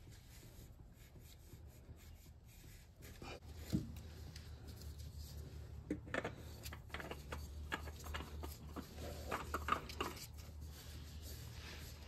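A shop towel wiping the oil filter mount, then a new spin-on oil filter being fitted and turned onto its threads by a gloved hand: quiet rubbing with scattered light clicks and knocks, the sharpest about four seconds in. A faint steady low hum runs underneath.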